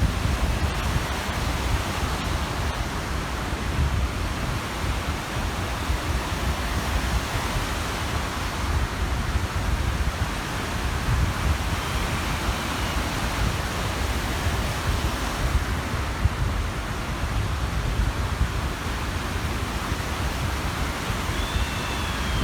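Steady rush of small waves on a lakeshore, mixed with wind buffeting the microphone in a gusty low rumble.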